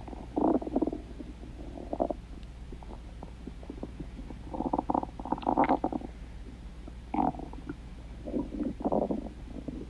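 Stomach growling and gurgling in irregular bursts, loudest a little past the middle.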